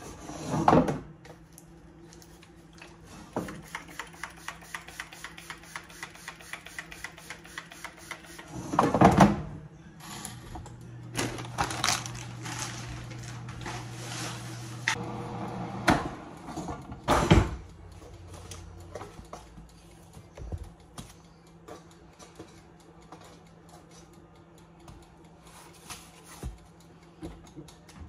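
Kitchen handling sounds from an air fryer and its removable basket: knocks and clatters, a several-second run of rapid, even clicking, and a few louder noisy bursts near the middle.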